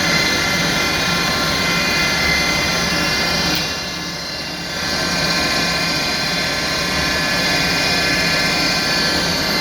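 CNC-retrofitted Lagun milling machine running with a steady, many-toned mechanical whine. The sound dips and thins for about a second near the four-second mark, then comes back as before.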